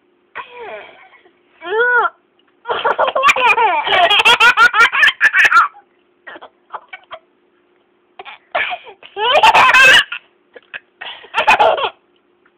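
Young child laughing in repeated bursts, with a long run of laughter from about three to six seconds in and shorter fits later.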